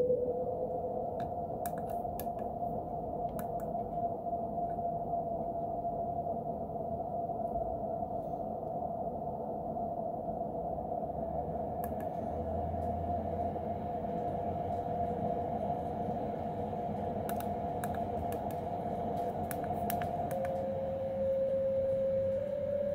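SOMA Rumble of Ancient Times synthesizer holding a steady droning tone, with scattered sharp clicks. About twenty seconds in the drone changes to a lower note.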